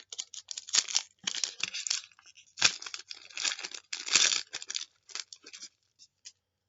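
Foil trading-card pack wrapper crinkling and tearing as a pack is opened by hand, in quick crackly bursts that thin out to a few separate crackles.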